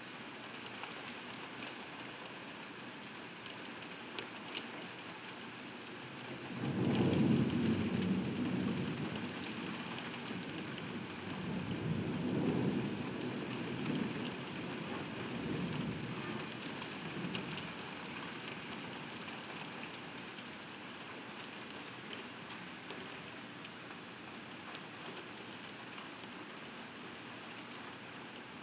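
Steady heavy rain pattering on window glass, heard from indoors. About six seconds in, a roll of thunder breaks in and rumbles in waves for about ten seconds before fading back under the rain.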